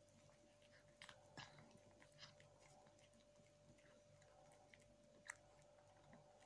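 A cat eating wet Kitekat food from a plate, very faintly: soft chewing with a few scattered small clicks, the sharpest about five seconds in. A faint steady hum runs underneath.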